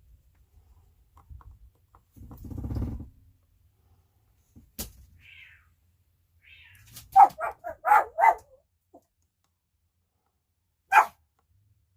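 Dog barking: a quick cluster of short barks about seven to eight seconds in, and one more bark near the end. A low, buzzing rumble comes briefly about two seconds in, before the barks.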